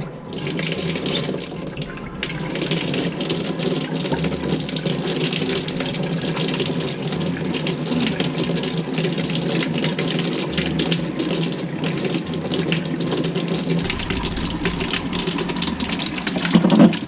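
Water running steadily from a commercial sink faucet, with a short break about two seconds in.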